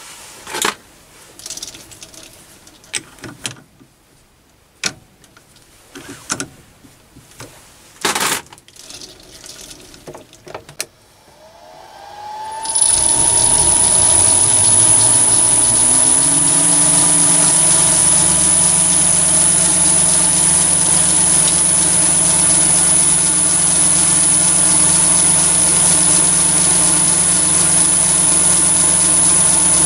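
Scattered clicks and knocks, then about twelve seconds in the Chinese mini lathe's motor starts, its pitch rising for a few seconds as the chuck spins up. It then runs steadily with a high whine, the spindle turning at about 1,400 rpm.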